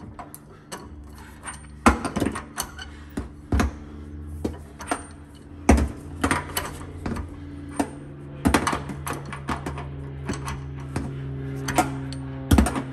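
Steel ratchet and socket clanking on the hex head of a new water-heater anode rod as it is tightened into the tank top, the socket lifted off and set back on between swings: a dozen or so irregular metal knocks and clicks. Soft background music with low steady tones grows louder toward the end.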